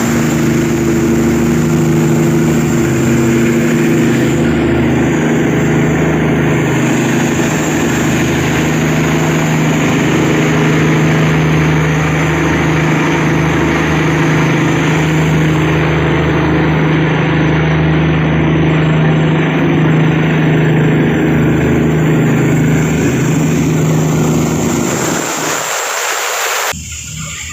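Tugboat's diesel engine running steadily at a constant speed, a deep even drone; it cuts off suddenly near the end.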